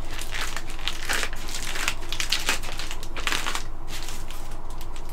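Plastic bubble wrap crinkling and crackling under the hands as it is pressed and handled on tissue paper, in irregular crackles.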